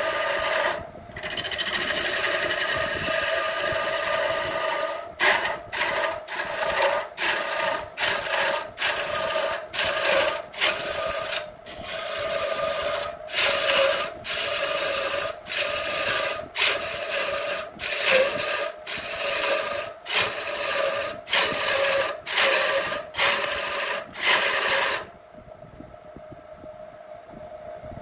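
A long gouge cutting into a large wood blank spinning on a lathe, with a steady hum underneath. The cut is continuous at first, then comes as a run of short cuts about one and a half a second as the tool goes in and out. Near the end the tool lifts off and only the lathe's quieter running hum is left.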